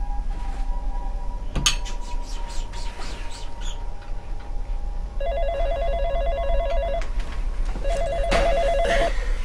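Telephone ringing with a fast electronic trill, two rings with a short pause between them, starting about five seconds in.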